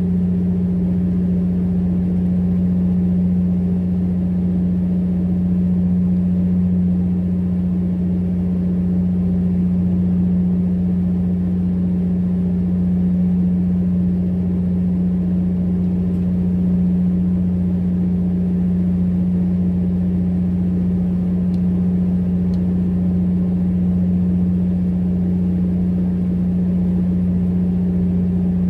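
A fishing boat's engine running steadily: a loud, unchanging low drone.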